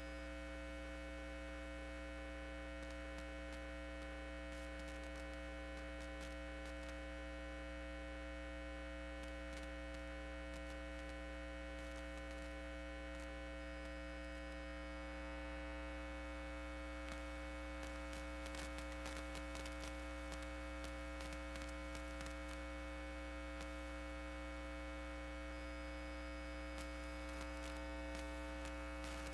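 Steady electrical mains hum with a stack of evenly spaced overtones. From about halfway through, faint scattered clicks join it.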